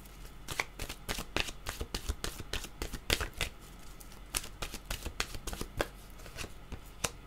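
A deck of oracle cards being shuffled by hand: quick, irregular flicks and slaps of card against card, densest over the first few seconds, then thinning out to scattered flicks.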